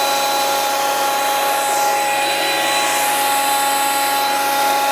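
Parkside PADM 1250 A1 jointer-planer running steadily: motor and spinning cutterhead give a constant whine over a rushing noise, with no cut being taken.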